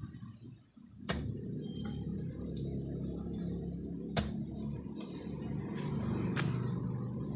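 Digging tool striking hard, compacted soil in sharp single knocks, about one every three seconds with lighter scrapes between, over a steady low rumble.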